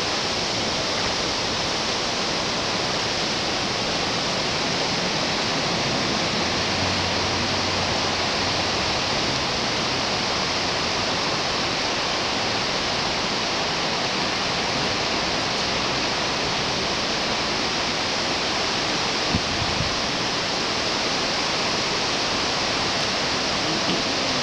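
Creek water running over a shallow riffle: a steady rushing hiss, with a brief knock about 19 seconds in.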